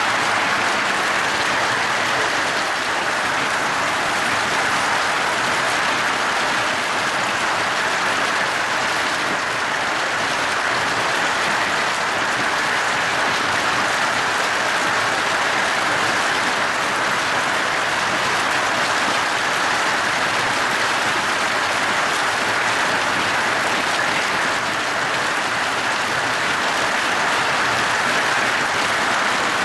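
Hailstones mixed with heavy rain pelting a timber deck and garden: a dense, steady clatter of countless small impacts.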